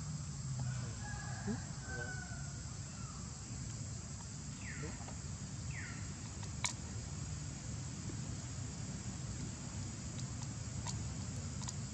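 Outdoor ambience: a steady high insect drone over a low hum, with two short falling chirps about five and six seconds in and a few sharp clicks.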